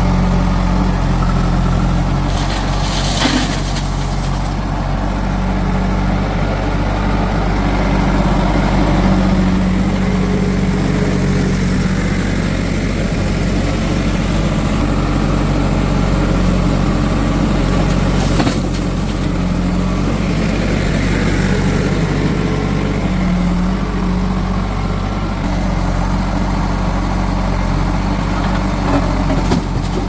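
Diesel engine of heavy machinery running steadily, with two brief knocks, about three seconds in and about eighteen seconds in.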